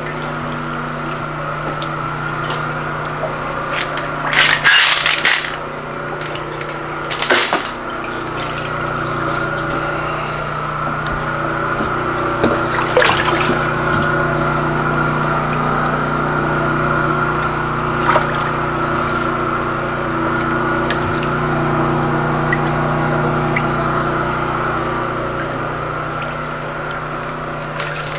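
Floodwater sloshing and splashing as someone wades through a flooded house, with louder splashes about four, seven and thirteen seconds in, over a steady hum.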